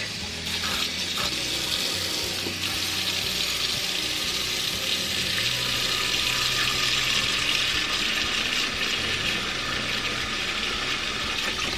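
Kitchen faucet running a steady stream of water into a plastic tub in a stainless steel sink, filling it.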